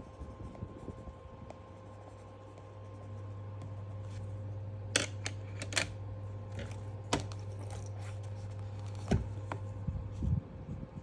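Several sharp clicks and clacks of wooden coloured pencils being handled and set down on a table while a pencil is swapped, over a low steady hum. Pencil scratching on paper starts again near the end.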